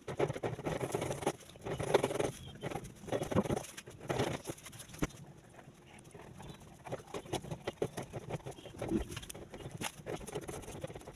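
Felt-tip markers and a pen scratching and tapping on paper in uneven strokes, with small clicks.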